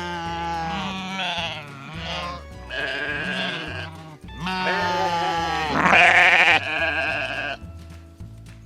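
Sheep bleating several times, long quavering calls, over background music with a repeating bass line.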